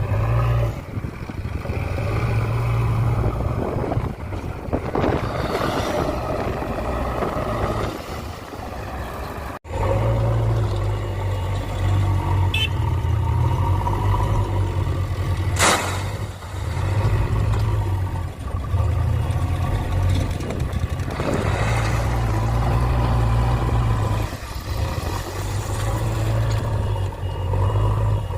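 Backhoe loader's diesel engine running under working load, its level rising and easing. A single sharp knock about two thirds of the way through.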